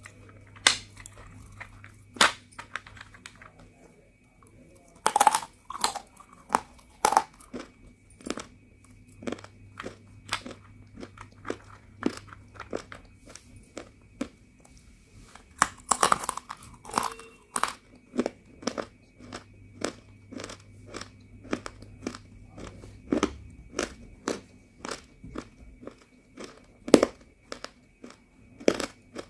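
Roasted multani mitti (fuller's earth clay) being bitten and chewed close to the microphone. There are loud crunchy bites about five and sixteen seconds in, and between them crisp chewing crunches at about two a second. A faint steady hum runs underneath.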